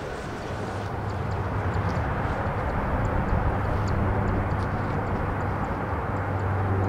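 Jet engine noise from a Bombardier CRJ700 with twin rear-mounted turbofans as it rolls out down the runway after landing. It is a broad rush with a low hum, growing louder over the first few seconds and then holding steady.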